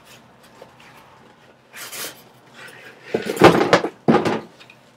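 Cardboard box and plastic packing being handled as an RC radio transmitter is unpacked from its box: a brief scraping rustle about two seconds in, then a burst of loud rustling and knocking about a second later.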